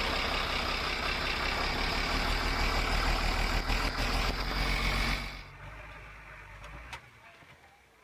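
Diesel engine of a heavy vehicle running, loud and steady, then dropping sharply in level about five seconds in.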